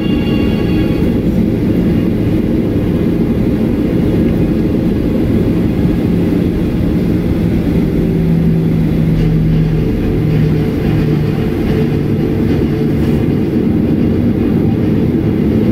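Cabin noise of a Boeing 737-800 taxiing, heard from inside the cabin: a steady low rumble from its CFM56-7B engines at idle and the rolling airframe, with a low hum coming in about six seconds in.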